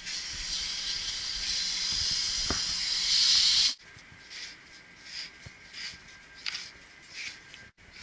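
Steady hiss of pressure escaping at a ball valve on the refilled copper water-loop piping of a water-source heat pump. It grows slightly louder for about three and a half seconds, then cuts off suddenly. Scattered light clicks of hands on the fittings follow.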